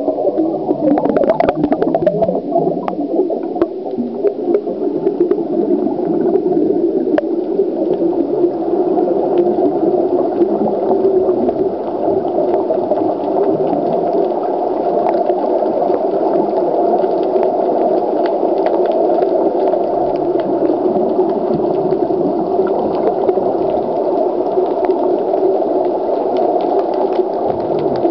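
Steady, muffled rush of water recorded by a camera underwater, with scattered faint clicks that are thickest in the first few seconds.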